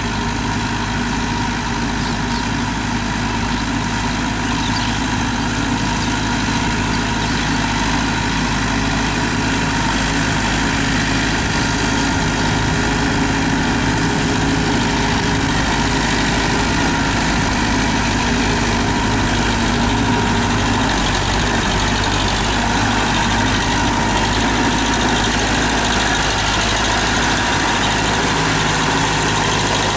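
TAFE 5900 DI tractor's diesel engine running steadily under load, driving a rotary tiller through wet mud.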